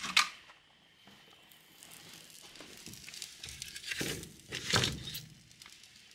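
Paper crinkling and crackling as newspaper kindling is handled and burns in a wood fireplace, with two louder rustles about four and five seconds in.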